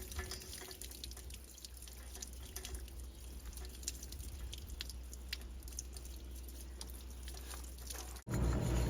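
Water dripping and trickling out of a Suburban RV water heater's tank opening, with many small irregular drip ticks. About eight seconds in, the sound cuts abruptly to a louder low hum.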